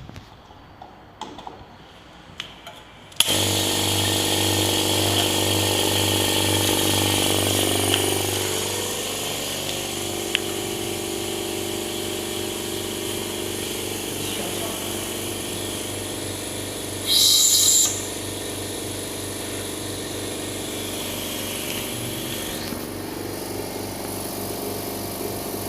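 Electric air compressor (750 W, 30 L tank) switching on about three seconds in after a few light clicks, then running steadily with a low hum as it pumps up. A short loud hiss of air cuts in for about a second two-thirds of the way through.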